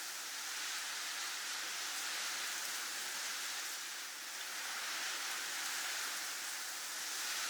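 Snowstorm wind blowing as a steady hiss, swelling and easing gently, with a slight lull about four seconds in.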